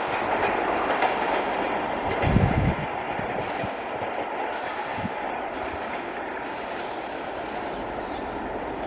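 ICF passenger coaches of an express train rolling past, their wheels clattering over the rail joints. A few heavier wheel thumps stand out, the loudest about two and a half seconds in, and the noise slowly gets quieter.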